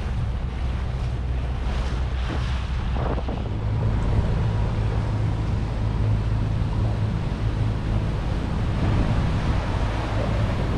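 A jon boat's outboard motor running steadily under way, with wind buffeting the microphone and water rushing past the hull. About three seconds in, the motor's note steps up in pitch and holds there.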